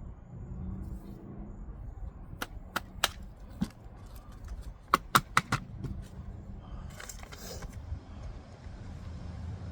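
A handful of sharp clicks and knocks in two quick clusters, then a brief rustle, over a low steady rumble.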